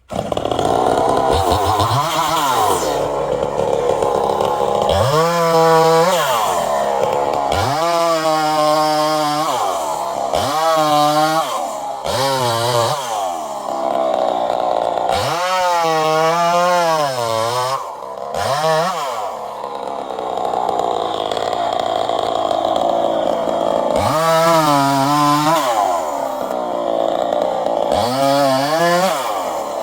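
Chainsaw running at high revs and cutting wood, its engine pitch repeatedly dropping and climbing again as the chain is loaded in the cut and then eased.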